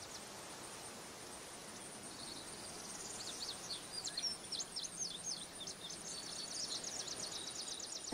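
Songbirds chirping in quick high notes over a faint steady hiss of outdoor air. The chirps pick up about three seconds in and end in a rapid trill.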